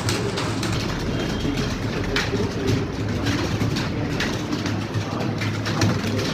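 Computer keyboard keys clicking in irregular single keystrokes over a steady low hum.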